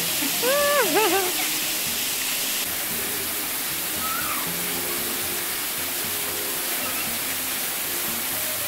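Manyava waterfall, a drop of about 20 m onto rocks, pouring with a steady rushing hiss. About half a second in, a voice gives a couple of short high-pitched calls over it.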